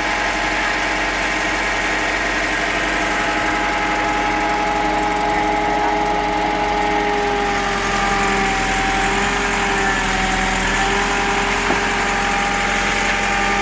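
A heavy machine's engine running steadily, its pitch sagging a little and recovering about two thirds of the way through.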